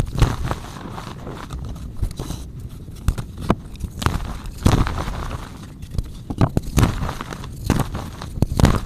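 Green chalk being bitten and chewed: irregular sharp crunches, several every second or two, with softer crumbling between them.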